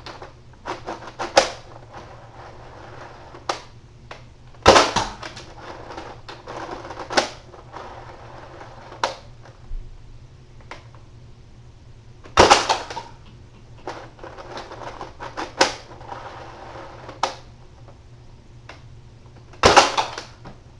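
Nerf Mega Centurion Sonic Ice spring-plunger dart blaster being fired and re-cocked: loud sharp snaps of shots, the strongest a little before 5 s, at about 12 s and near 20 s, with plastic clicks and clattering of the priming between them.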